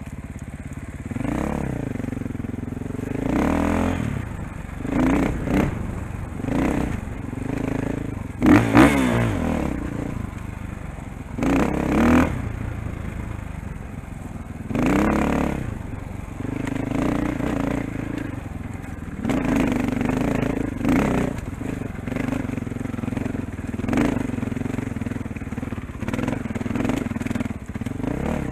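KTM 500 dirt bike's single-cylinder four-stroke engine being ridden hard off-road, revving up in several sharp throttle bursts and dropping back between them. The loudest burst comes about a third of the way in, and the engine then settles into a steadier run with smaller rises.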